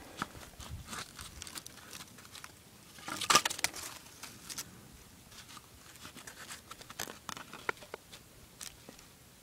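Dry dead branches and bark crackling and snapping as a hard wrapped block is handled and wedged into a tree fork. There is a louder cluster of crunching clatter about three seconds in, then scattered small clicks and rustles.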